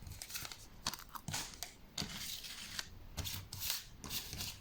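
Faint, irregular crinkling and clicking of Panini Adrenalyn XL trading card packs being handled and opened, their foil wrappers crackling in quick, uneven bursts.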